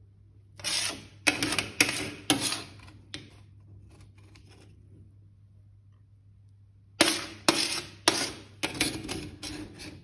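Metal spoon scraping rice off the bottom of a paella pan: a quick run of short scrapes about half a second in, then another run in the last three seconds.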